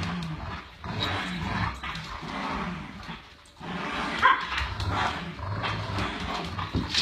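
Dogs growling in rough, on-and-off bouts while playing tug-of-war over a rope toy, with a short sharp bark about four seconds in.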